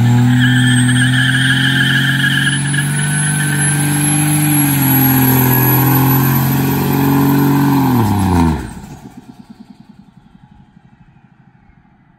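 Third-gen Dodge Ram's Cummins turbo-diesel held at high revs during a burnout, rear tyres spinning. The engine note holds steady for about eight seconds with a thin high whine rising above it, then the revs drop and the sound falls away sharply about eight and a half seconds in.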